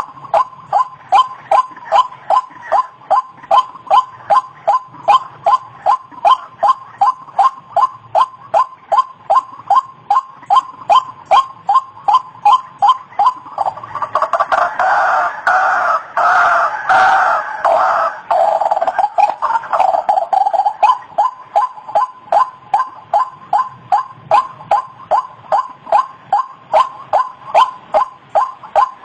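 White-breasted waterhen (ruak-ruak) calling over and over, a pitched croaking note about twice a second. From about halfway through, for several seconds, the calls thicken into a louder, overlapping chorus, then settle back into the steady repetition.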